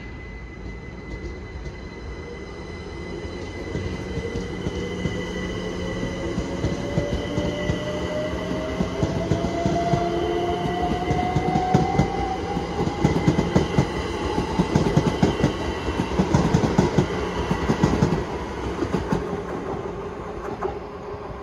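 GWR Class 387 electric multiple unit on the adjacent line, its traction motors whining and rising steadily in pitch as it picks up speed. The wheels clatter over the rail joints, loudest about two thirds of the way in, then the sound eases off.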